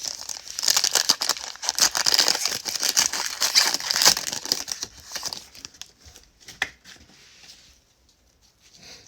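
Plastic trading-card pack wrapper being torn open and crinkled, with dense crackling for several seconds. The sound fades out over the last few seconds.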